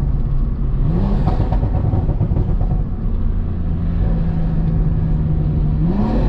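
BMW M340i's turbocharged B58 straight-six, fitted with an aftermarket intake, pulling on the road: its pitch climbs about a second in, holds steady for a while, then climbs again near the end.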